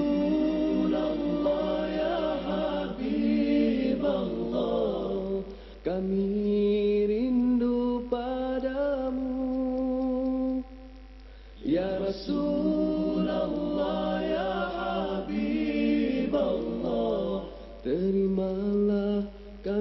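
Background music: unaccompanied, chant-like singing in long, held melodic phrases broken by a few short pauses.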